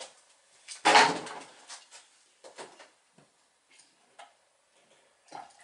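Handling noise from a wooden model sailboat's rigging and sails: one louder knock and clatter about a second in, followed by a few small scattered clicks and light knocks.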